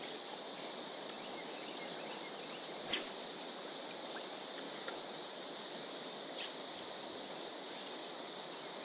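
Steady chorus of periodical (17-year) cicadas, a constant high-pitched drone, with one short click about three seconds in.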